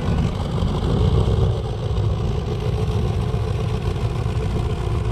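Fishing boat's engine running steadily as the boat motors out of the harbour, a low continuous rumble.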